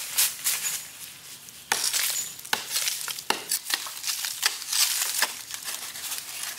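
Metal-bladed hand hoe chopping into the hard, dry earth of a termite mound, with repeated sharp strikes and the crunch of clods breaking and crumbling as the blade is levered in.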